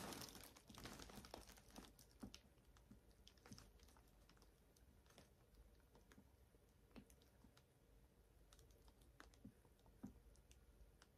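Faint scattered small clicks and taps of makeup packaging being handled, with a short rustle fading in the first second or so.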